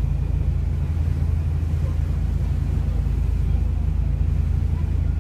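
Fishing boat's engine running steadily under way, a low, even rumble heard from inside the wheelhouse.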